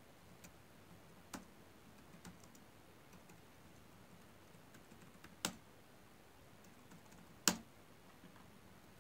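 Sparse keystrokes on a computer keyboard as terminal commands are typed: faint ticks with a few sharper key taps, the loudest about seven and a half seconds in.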